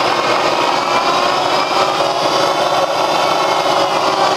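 Bridgeport Series 1 two-horsepower variable-speed milling head running under power: a steady motor-and-drive whine whose pitch drifts slightly as the speed is dialled. It runs smoothly, with none of the clacking usually heard from the variable-speed drive.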